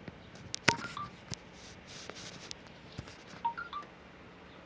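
Light clicks and taps from handling a small sewing machine needle, with a few short, high pings.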